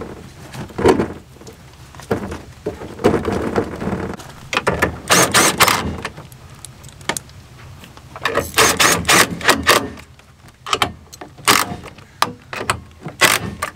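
Cordless drill/driver driving in the tow mirror's mounting bolts, run in several short bursts, with rattling of the mirror and door parts between them.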